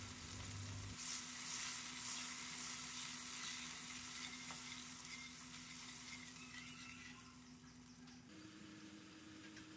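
Faint sizzling of water just added to hot oil and fried garlic-chilli paste in a stainless steel pan, with a spoon stirring it. The sizzle dies away over the last couple of seconds as the water settles.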